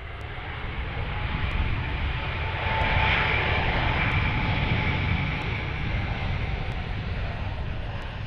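Jet engines of a Delta Airbus A220, Pratt & Whitney geared turbofans, as the airliner rolls along the runway: a steady jet roar with a whine in it, loudest about three seconds in as it passes, then easing slightly.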